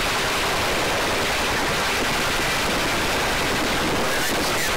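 Steady, even rushing noise of a search-and-rescue helicopter hovering, its rotor and engine noise heard as an unbroken hiss.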